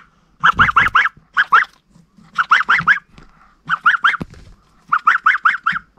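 Young domestic goose (a gosling) peeping in quick runs of three to six rising calls, five runs with short pauses between.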